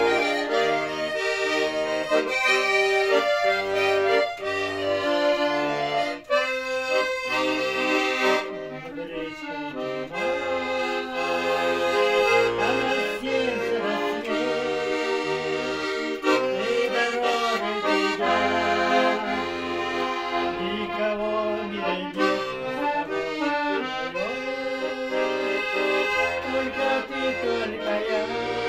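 Red button accordion playing a tune: a melody of held reedy notes over alternating bass notes and chords in a steady rhythm.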